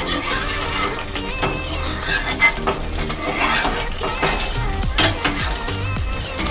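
A spatula stirring and scraping through a thick curry of dry fish and potatoes in a non-stick pan, knocking and clinking against the pan now and then.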